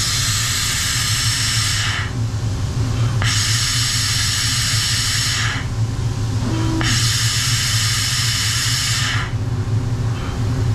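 CNC tool and cutter grinder running its probing cycle to measure the drill's diameter: a steady low machine hum with three hissing bursts, each about two seconds long and about a second apart.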